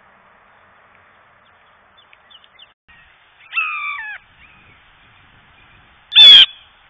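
Blue jay calls: one harsh call with a falling pitch about halfway through, then a much louder, harsh, short call near the end.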